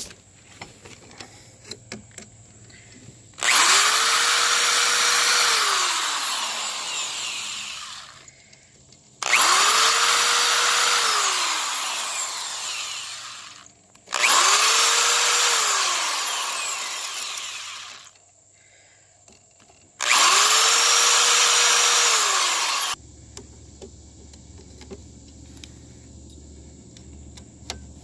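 Electric drill boring holes for rivets through aluminum angle, in four runs of a few seconds each with short pauses between. In each run the motor speeds up to a steady whine and winds down as the trigger is released. Faint clicking of handling follows near the end.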